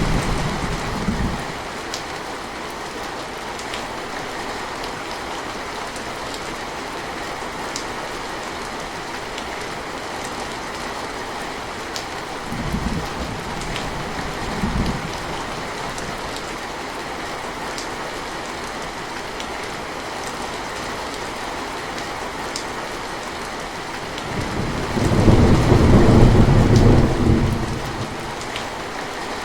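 Steady heavy rainfall with rolling thunder. A rumble fades out in the first second or so, two short low rumbles come around the middle, and a longer, louder peal of thunder rolls near the end.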